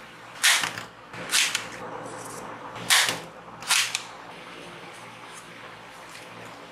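Four sharp plastic snaps from toy foam-dart revolvers' spring mechanisms, in two pairs within the first four seconds.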